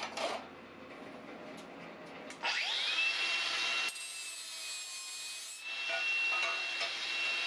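A handheld grinder on 16-gauge sheet metal: about two and a half seconds in its motor spins up to a steady high whine, and the grinding noise comes in two louder spells, the second starting a little past the middle.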